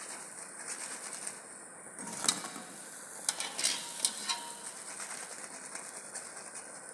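Hot oil sizzling steadily as geimat dough balls deep-fry, with a handful of light clinks from a utensil against the pot in the middle.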